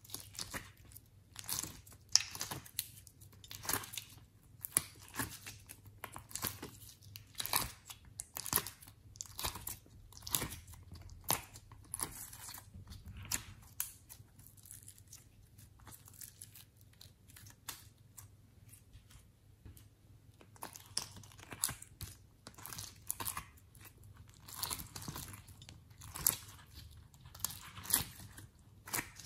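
Hands squeezing and kneading sticky slime and pressing slime hearts out of a plastic heart-shaped mold, making irregular wet, sticky clicks and squelches. The clicks thin out for a few seconds mid-way, then pick up again.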